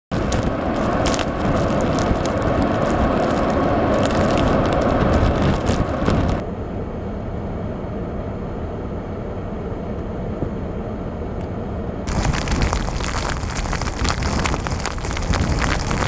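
Blizzard wind gusting hard across the microphone, with crackling buffeting. About six seconds in it turns to a duller, quieter rush, and about twelve seconds in it returns to a harsh crackling rush.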